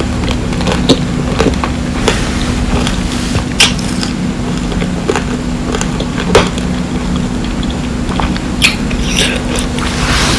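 Biting and chewing candy grapes close to the microphone: the hardened sugar shell cracks in sharp crunches every second or two, between softer chewing, over a steady low hum.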